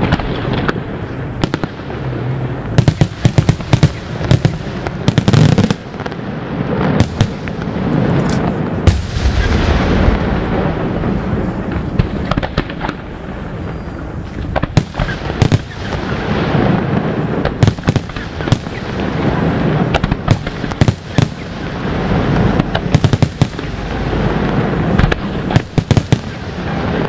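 Aerial fireworks display: a rapid, unbroken barrage of shell bursts, with sharp bangs packed close together over a continuous rumble, the loudest reports standing out every second or so.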